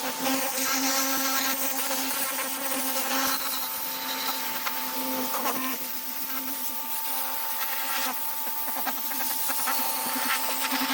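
Pressure washer running with a steady motor whine over the hiss of its water spray.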